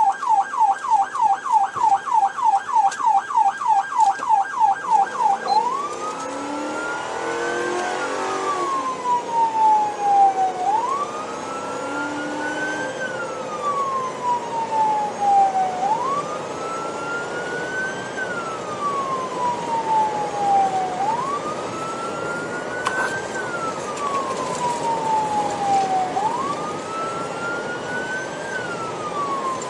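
Police car siren heard from inside the cabin of a Ford patrol car. It starts on a fast yelp of about four rising-and-falling sweeps a second, then about five seconds in switches to a slow wail that climbs quickly and falls away, one cycle about every five seconds.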